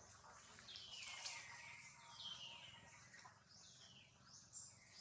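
Faint high-pitched animal calls, each sliding down in pitch, repeated about once a second.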